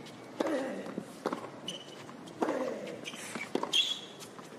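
Tennis rally on a hard court: sharp racket hits on the ball and ball bounces, with short high-pitched shoe squeaks as the players move.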